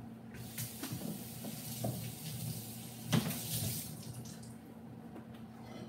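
Water running from a kitchen tap into a sink as raw chicken breasts are rinsed under it, with a knock a little after three seconds in. The running water dies away about four seconds in.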